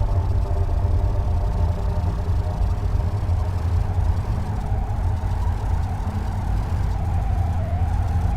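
Radio emissions attributed to Saturn's moon Mimas, recorded by a NASA space probe and converted to sound: a steady deep rumble with several held tones above it. About halfway through, a higher tone starts to waver slowly up and down like a siren.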